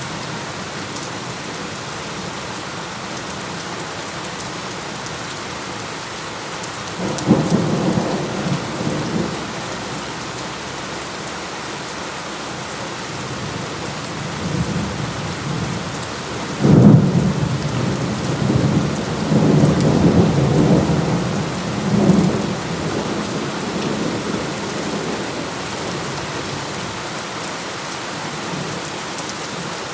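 Heavy rain falling steadily, with thunder over it: a short rumble about seven seconds in, then a louder clap about seventeen seconds in that rolls on in waves for several seconds before fading.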